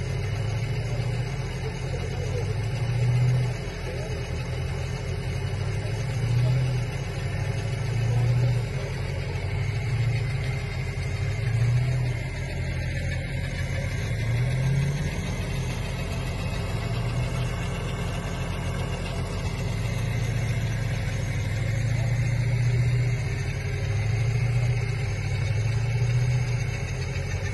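Jeep Grand Cherokee's engine running under load as it works through muddy, snowy ruts, its revs swelling and easing every few seconds.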